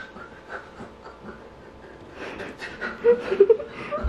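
A man panting in short, quick breaths that grow louder about two seconds in, with a brief whining sound from the voice shortly after three seconds in.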